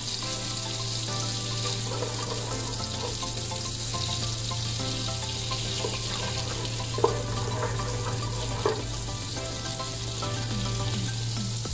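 Butter melting in an aluminium pot over a low gas flame, sizzling steadily while a wooden spatula stirs it, with a couple of light knocks about two-thirds of the way through.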